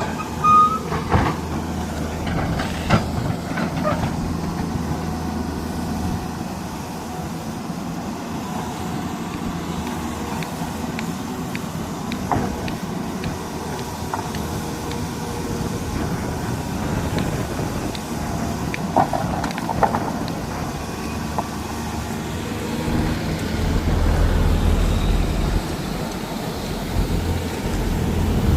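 Heavy diesel engine running steadily, with scattered sharp metallic clanks. The low rumble swells louder near the end.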